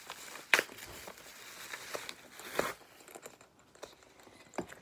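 White paper wrapping crinkling and crackling as it is pulled off a canvas belt bag, with two sharp paper snaps, about half a second and about two and a half seconds in. The last couple of seconds are quieter handling of the bag, with one small click near the end.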